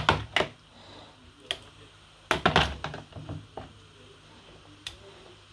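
A spoon knocking and clinking against a metal cooking pot: a few separate sharp clicks, and a quick run of knocks and scrapes about two and a half seconds in.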